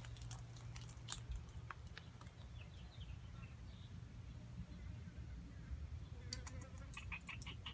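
Faint scattered clicks and ticks over a steady low hum, with a quick run of clicks near the end.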